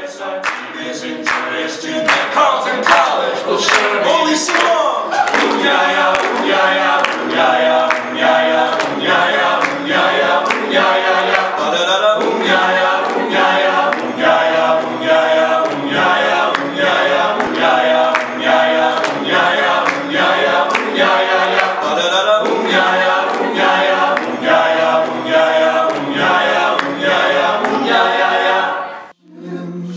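A seven-voice male a cappella group singing in close harmony, with a steady clicking beat running under the voices. The singing breaks off about a second before the end.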